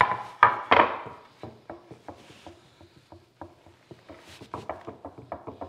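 A wooden board is set down on a wooden workbench with two loud knocks. It is then rocked corner to corner, clacking lightly against the benchtop as it pivots on a high spot, a sign the face is not yet flat. The clacks come faster in the second half.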